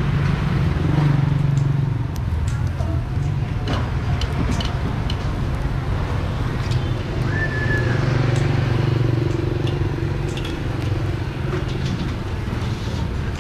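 Street traffic of motorbikes and cars running past, swelling twice as vehicles go by, with scattered light clicks. A short high beep sounds about seven seconds in.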